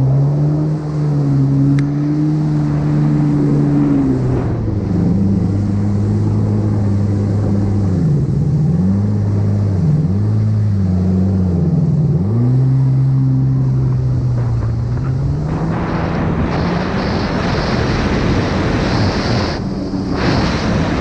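Stand-up jet ski engine running at speed. Its pitch drops and climbs again several times around the middle as the throttle is let off and reopened. From about three quarters of the way in, a loud rush of water spray and wind comes up over the engine.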